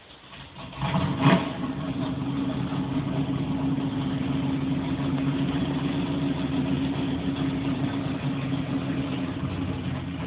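Race car engine heard from inside a house. It picks up about a second in with one short, sharp peak, then runs on with a steady, even note.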